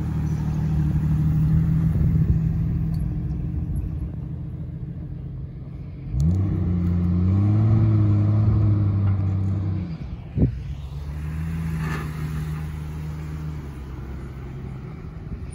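Engines of lifted off-road 4x4s crawling over rough trail at low revs. About six seconds in, one engine revs up and holds higher under load for several seconds before dropping back, followed by a single short thump.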